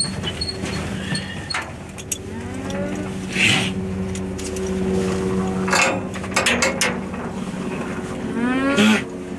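Pack llamas in a stock trailer humming, a low drawn-out hum running through most of the moment with a few rising calls. Hooves and gear knock now and then on the trailer's metal floor and walls.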